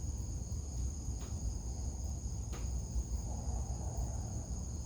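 Steady high-pitched chirring of insects over a low rumble, with a couple of faint ticks.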